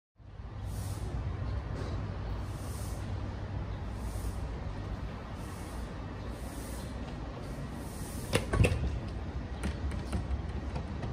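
A steady low background rumble with a faint high hiss that comes and goes every second or two. About eight seconds in, a glass door is handled with a quick cluster of sharp clicks and knocks, and a few lighter clicks follow.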